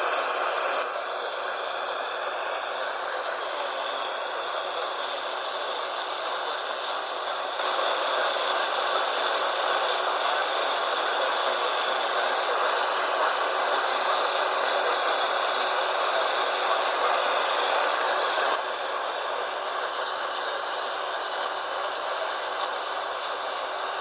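Radio static: a steady hiss with crackle from a radio receiver carrying no programme. It steps louder about eight seconds in and drops back about nineteen seconds in, each change marked by a small click.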